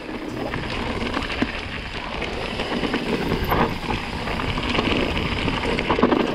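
Mountain bike descending a dry, stony trail: tyres running over loose rocks with a constant rattle and many small knocks from the bike.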